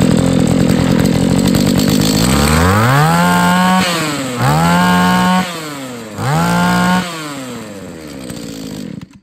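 Mitsubishi TB27 two-stroke brush cutter engine idling, then revved up three times in quick succession and let back down to idle. It cuts off abruptly just before the end as it is switched off.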